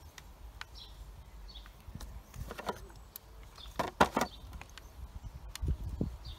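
Scattered clicks and knocks of the chainsaw's plastic housing being fitted and handled, with a louder cluster of knocks about four seconds in and a few dull thuds near the end.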